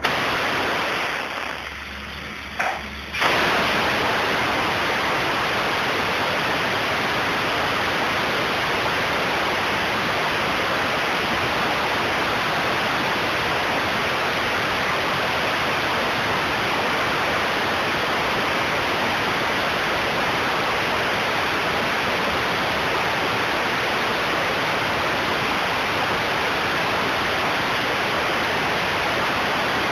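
Air-driven cartridge spray gun spraying hybrid polyurea truck bed liner: a steady loud hiss of compressed air and atomised coating, starting about three seconds in after a click.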